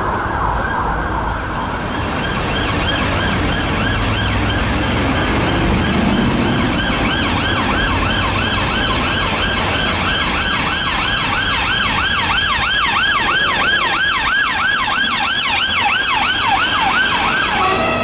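Emergency vehicle siren sounding in city traffic. It has slower sweeps for the first few seconds, then a fast yelp of about three rises and falls a second through most of the rest. Traffic rumble runs underneath.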